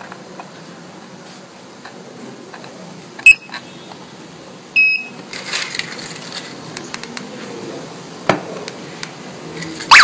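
GSM alarm control panel giving two short, high beeps about a second and a half apart, among clicks and handling noise as the unit is set up. A loud warbling siren cuts in at the very end.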